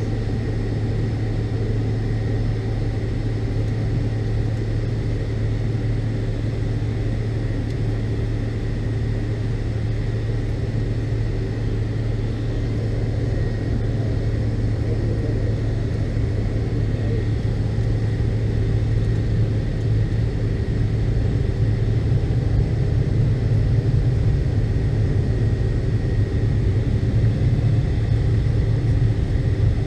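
Steady cabin noise inside a McDonnell Douglas MD-82 airliner with its rear-mounted jet engines running: a low drone under a faint high whine. It grows a little louder about two-thirds of the way in.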